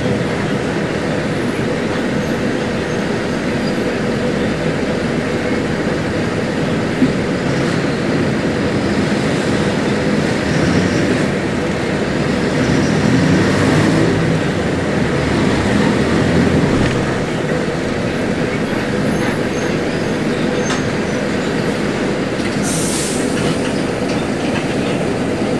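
Caio Apache Vip bus on a Mercedes-Benz OF-1721L chassis, its diesel engine roaring loudly in a steady dense rumble that swells a little midway. A brief hiss comes near the end.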